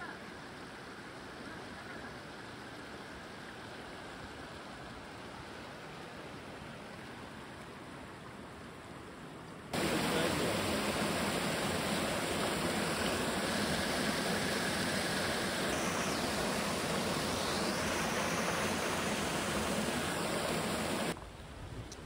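Steady faint rush of a mountain stream. About ten seconds in it cuts suddenly to the much louder, close rush of water spilling over boulders into a rock pool, which stops abruptly about a second before the end.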